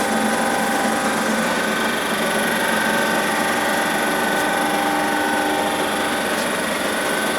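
Estarta 301 centerless grinder running steadily, a constant machine hum with several steady whining tones, high and low, over a hiss.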